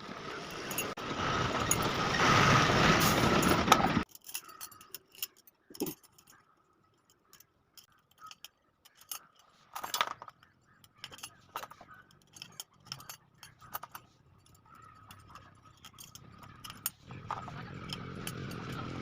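Steel spokes clinking against each other and against a motorcycle's rear drum hub as they are threaded through the hub holes: scattered light metallic clicks and clinks. It opens with a few seconds of loud, steady noise that cuts off suddenly about four seconds in.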